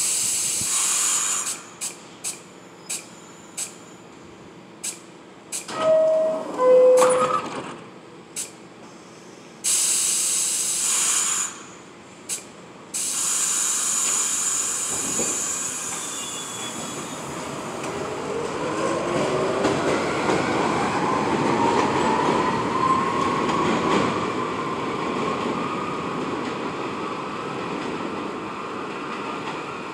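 New York City subway train leaving the station: a two-note falling door chime, the doors closing and air hissing, then the train pulling out with the whine of its motors rising in pitch as it speeds up and draws away.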